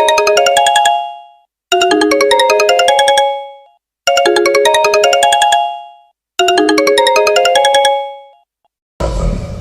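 Smartphone ringtone: a short, bright melody of quick notes, played four times with a short pause between repeats, each phrase ending on held notes that fade. A different, noisier sound starts near the end.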